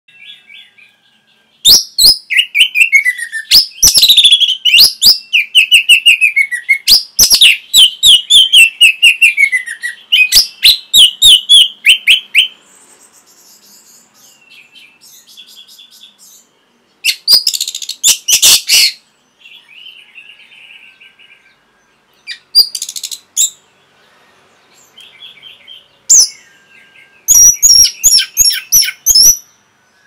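Orange-headed thrush singing: long, loud runs of rapid whistled notes that slur downward, then quieter twittering broken by several short loud bursts of song.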